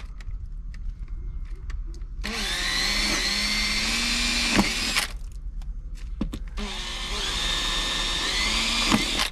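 Cordless drill boring into a sailboat's fibreglass keel in two runs of about three seconds each, the pitch climbing as each run gets going. It is drilling a test hole into a bump suspected of delamination.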